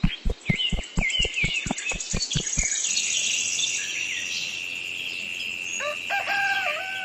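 Birds chirping over a steady high insect-like whine, with a quick run of low thuds, about six a second, for the first couple of seconds. A rooster starts crowing about six seconds in.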